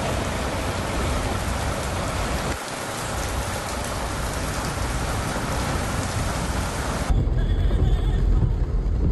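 Heavy rain pouring down onto wet pavement, a dense steady hiss. About seven seconds in it cuts to a low rumble heard from inside a car moving through a flooded street.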